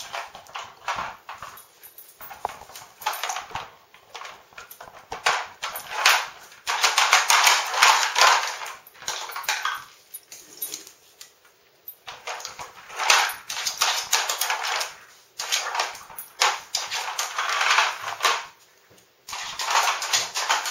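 Nina Ottosson Dog Tornado, a hard-plastic treat puzzle with stacked spinning layers, clattering on a tile floor as a dog paws and noses it. Irregular clicks and knocks come with bursts of scraping a few seconds long, separated by short pauses.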